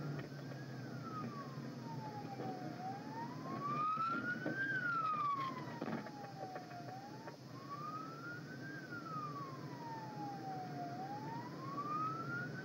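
Police siren in its slow wail, the pitch rising for about two seconds and falling for about two, three full cycles over steady road noise. A couple of short knocks come about four and six seconds in.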